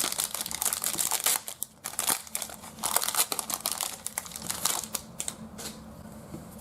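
The plastic wrapper of a trading card pack being torn open and crinkled by hand. It makes a dense run of crackles for about five seconds, then thins to a few light clicks near the end.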